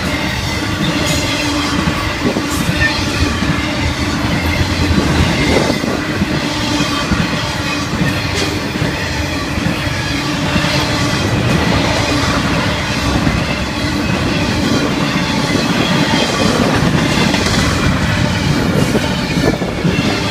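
Florida East Coast Railway freight cars (autoracks and intermodal) rolling past: a steady rumble of steel wheels on rail with clicks over rail joints and thin, high wheel squeal.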